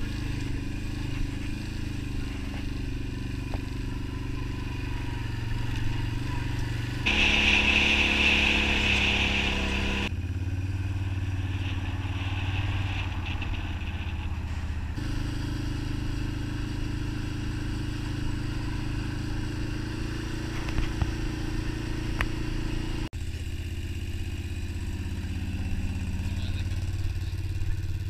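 Quad bike (ATV) engine running while riding along dirt tracks, heard from on the bike. The engine note shifts abruptly several times, and a louder stretch with a hiss runs from about seven to ten seconds in.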